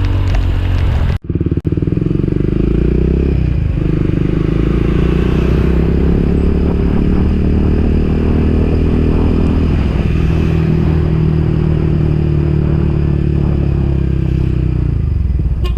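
Motorcycle engine running steadily under way, its pitch shifting slightly now and then. The sound cuts out briefly about a second in.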